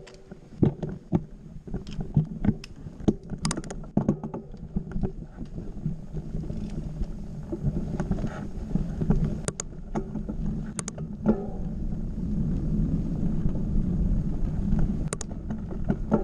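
Mountain bike riding over a grassy forest trail: a steady low rumble that grows louder after the first few seconds, with scattered sharp clicks and rattles from the bike.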